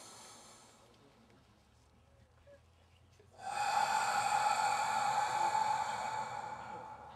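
A single held musical note with a rich set of overtones starts suddenly about three and a half seconds in, stays steady, then slowly fades near the end.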